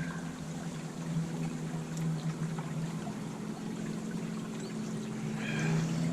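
Honeybees buzzing around an opened top-bar hive: a steady, even hum with a constant low pitch and overtones, over a faint hiss.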